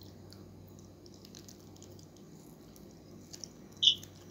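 Soft wet chewing and squishing of juicy ripe mango slices eaten by hand, with small mouth clicks and a short sharp slurp about four seconds in.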